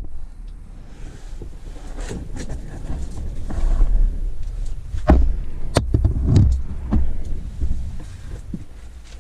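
Crawling and handling noise from a caver in a tight granite boulder passage: low rumbling from the pole-mounted camera being handled, with scraping and rustling of clothing on rock. A few sharp knocks, from the pole or gear striking stone, stand out about five and six seconds in.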